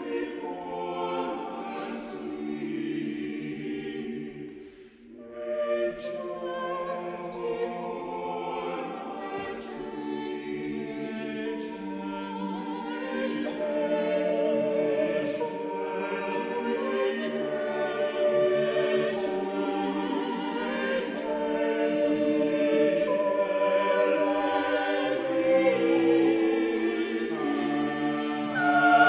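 Mixed choir of men's and women's voices singing unaccompanied in harmony. There is a brief breath pause about five seconds in, and the singing grows louder toward the end.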